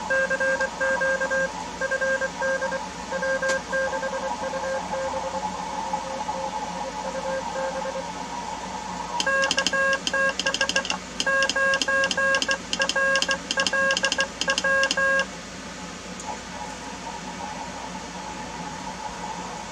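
Morse code (CW) tones and band hiss from a Malahit shortwave receiver on 20 meters. For the first eight seconds a station's keyed signal comes through. From about nine seconds in there is about six seconds of louder, faster keying sent on a straight telegraph key, with a click on each dot and dash. After that only the steady hiss of the band is left.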